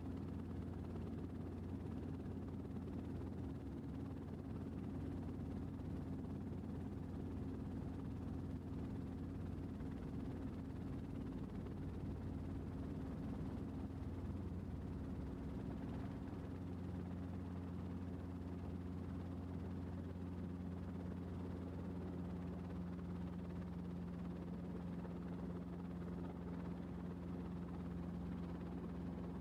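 Helicopter engine and rotor drone heard from on board, a steady low hum with no break. A little past halfway a second steady hum joins and holds.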